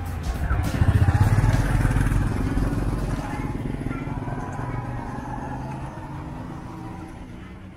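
A motorbike engine passing close by on the street, loudest about a second in and then fading away, over general street traffic noise.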